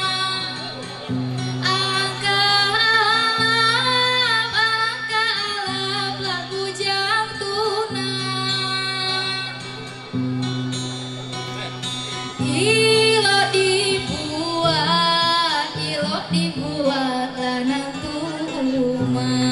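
A girl sings a tembang, a traditional South Sumatran sung verse, through a microphone, accompanied by acoustic guitar. Her voice moves in long, ornamented phrases that rise and fall, over steady low guitar notes. There is a short break in the singing about ten seconds in.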